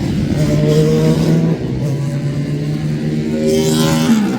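Classic racing car engine running hard, its note holding steady pitches that shift a couple of times. Near the end a car passes close by with a louder rush, its note rising and then dropping away.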